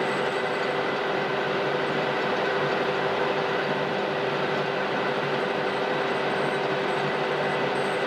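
Metal lathe running with a steady hum and whine of several constant tones, its carbide-insert tool cutting a 45-degree point on the end of a spinning brass rod.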